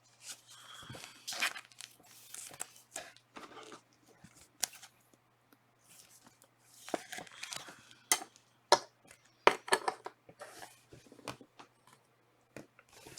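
Trading cards and foil card-pack wrappers being handled: scattered crinkles, scrapes and short clicks.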